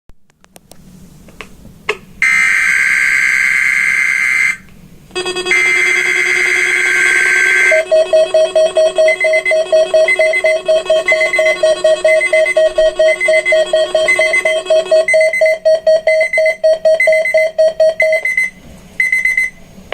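Emergency alert test tones: two long, loud electronic tone bursts, then rapid pulsing alarm beeps that stop about 18 seconds in, followed by two short beeps.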